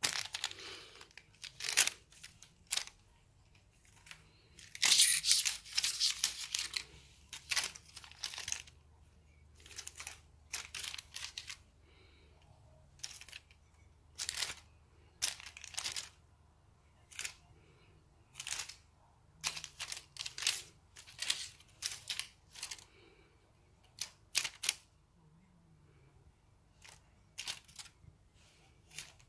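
Crinkly film wings of a kasha-kasha wand cat toy rustling in short, irregular bursts as the toy is shaken and batted at by a cat, busiest about five to seven seconds in.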